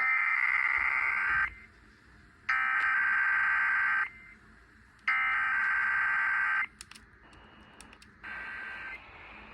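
Emergency Alert System SAME header data tones heard over a radio broadcast: three identical bursts of rapid two-tone digital warbling, each about a second and a half long with a second of hiss between them. A fainter burst of similar tones starts about eight seconds in.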